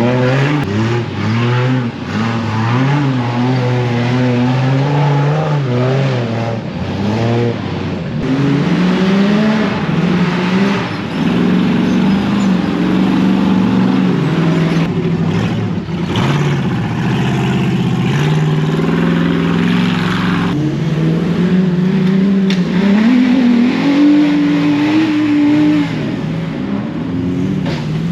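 Off-road race vehicle's engine revving up and down under hard driving. Its pitch rises and falls repeatedly, then climbs about 23 seconds in and holds high for a couple of seconds before dropping.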